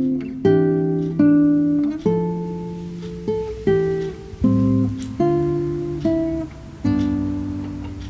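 Background music: a guitar playing slow chords, each plucked and left to ring out before the next.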